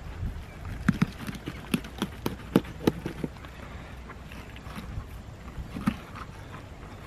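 Knife splitting a kahawai along its backbone on a polystyrene chilly-bin lid: irregular clicks and knocks as the blade works through the fish, most of them in the first three seconds, with a steady low rumble underneath. The knife is blunt and the wrong one for the job.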